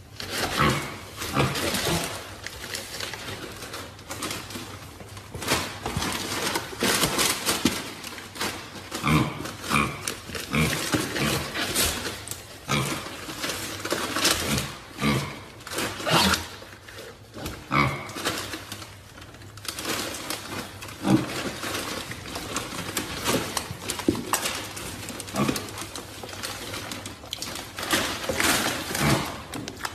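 Mini pigs grunting with short squeals, mixed with rustling noises from one of them moving about in a gift box.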